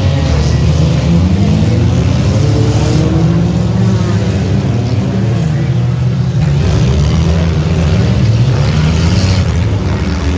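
Engines of several junk race cars running hard together, their pitches rising and falling as they rev.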